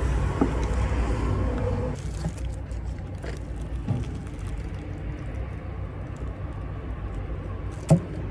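A motor vehicle's engine runs nearby as a steady low rumble that eases after about two seconds. There is light crinkling of a plastic bag, and a single sharp knock near the end.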